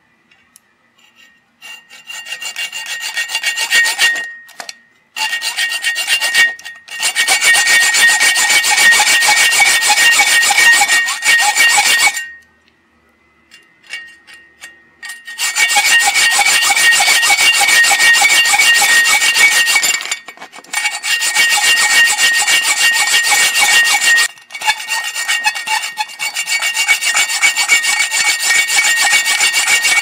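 Hacksaw blade sawing through a padlock's case-hardened steel shackle in steady back-and-forth strokes, a metallic rasp with a ringing edge. The shackle has been softened by heating it with a torch and letting it cool slowly, so the blade bites into it. The sawing starts a second or two in, stops for about three seconds midway, and has a few short breaks.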